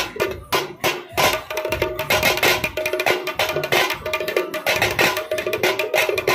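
Folk festival music: loud, fast drumming with a melody of short repeated notes played over it.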